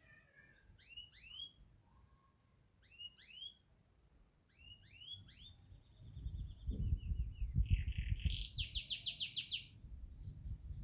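Yorkshire canary singing: pairs of quick upward-sweeping chirps, then a held trill, a buzzy phrase and a fast even trill of about eight to ten notes a second near the end. A low rumble runs under the second half.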